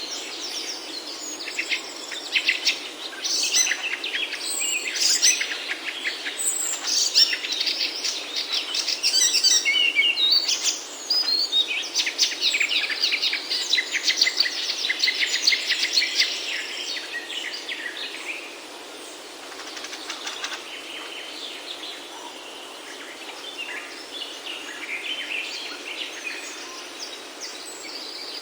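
Nestlings begging for food with rapid, high-pitched chirping, loudest over the first half and thinning to scattered chirps after about eighteen seconds, over a steady background hiss.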